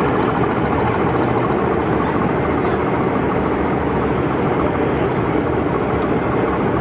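Steady din of a busy exhibition hall around a large O gauge model railway layout, with no single sound standing out.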